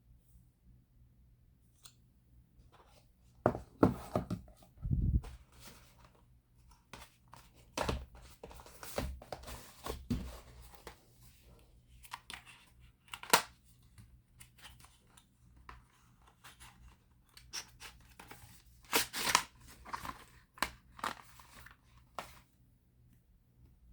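Packaging being torn open and handled by hand, in irregular bursts of tearing, rustling and sharp clicks and taps.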